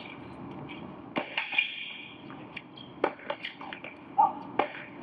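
Tennis ball struck by rackets in a doubles rally on an indoor hard court: a series of sharp pops, the loudest about a second apart to two seconds apart, with a short high squeak near the end.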